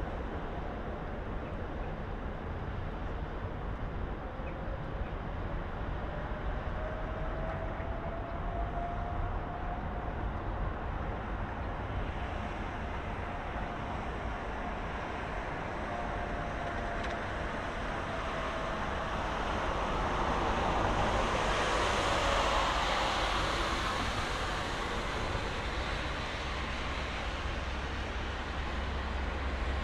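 Steady city road traffic from the riverside street, a wide hiss and low rumble, with one vehicle passing close and swelling louder then fading about two-thirds of the way through. A faint whine glides up and back down in pitch during the first half.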